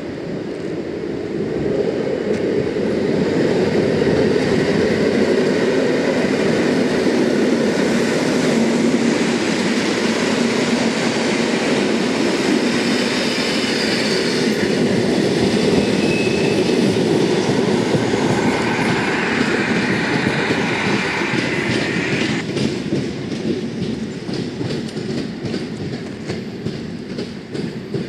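EN57 electric multiple unit pulling away and passing close by, its wheels rumbling and clacking over the rails. It grows louder over the first few seconds, gives a brief high squeal midway, and thins out over the last several seconds as it draws away.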